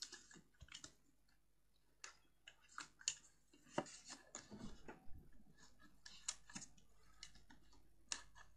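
Faint, scattered rustles and small taps of hands folding and handling cardstock.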